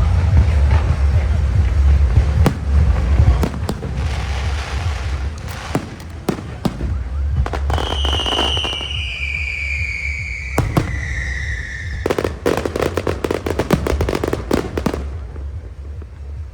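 Aerial fireworks going off: sharp bangs and crackling bursts, with one whistle sliding slowly down in pitch for about four seconds midway, then a dense run of crackles.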